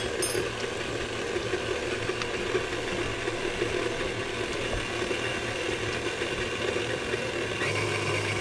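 Hobart stand mixer running, its motor humming steadily as the flat beater turns through cookie dough in a steel bowl. About three-quarters of a second before the end the hum changes pitch as the speed lever is moved.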